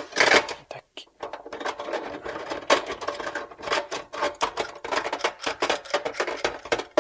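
Dense run of small scratchy clicks and rubbing as a chrome kitchen mixer tap and its threaded fixing are handled and turned against a stainless steel sink.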